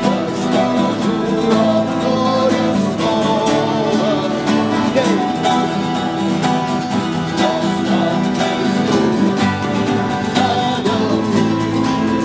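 Acoustic guitar strummed with a voice singing along: a song being played.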